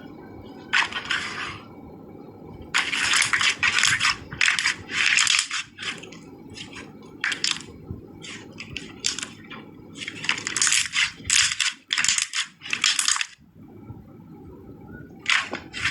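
Slime being squeezed and poked by hand, giving sharp wet clicks and crackly pops. Two long runs of dense crackling, one a few seconds in and one past the middle, are separated by scattered single pops.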